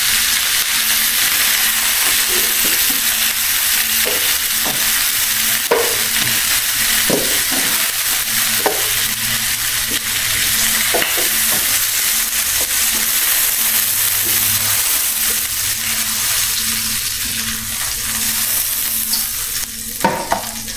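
Chicken legs frying in hot oil in a pan: a steady sizzling hiss, with a few short clicks of a utensil against the pan as the browned pieces are lifted out. The sizzle eases near the end.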